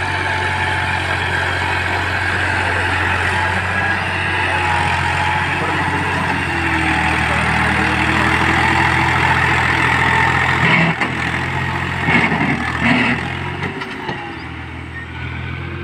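Farm tractor's diesel engine labouring under load as it hauls a loaded soil trolley up out of a muddy dip. The engine note holds steady, with a few knocks and clatters about eleven to thirteen seconds in, then grows fainter as the tractor pulls away near the end.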